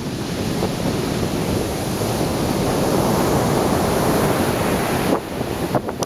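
Heavy storm surf after a hurricane: a big wave breaking and its whitewater rushing up the beach, the rush building over the first couple of seconds and then holding. A brief thump about five seconds in.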